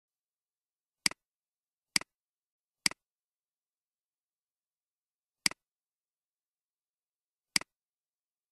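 Five computer mouse clicks, each a sharp press followed at once by a softer release: three about a second apart, then two more about two and a half and two seconds later.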